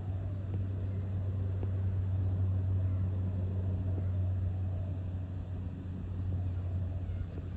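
Steady low engine drone from a distant source, swelling slightly about two to three seconds in and easing off again.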